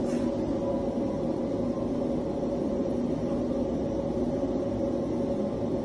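Steady mechanical drone with a constant hum, unchanging throughout; nothing from the pour itself stands out.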